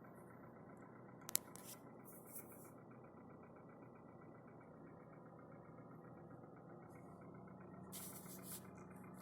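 Hyundai Solaris petrol engine idling cold, with a rapid, even knocking riding on the idle: the cold-start knocks that go away only when driving under load. A single sharp click sounds a little over a second in, and there are two brief hisses.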